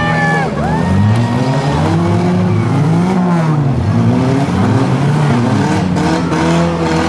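Several 4- and 6-cylinder compact-car engines revving up and down together, their pitches rising and falling over one another. A high squeal starts about half a second in and lasts about a second, and a few sharp knocks come near the end.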